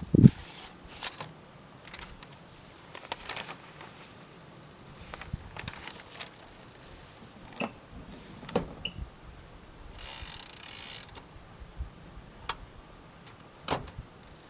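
Mechanism of a 1958 Royal Aristocrat manual portable typewriter being worked: scattered, irregular clicks and clacks a second or so apart, with a brief rasping slide about ten seconds in.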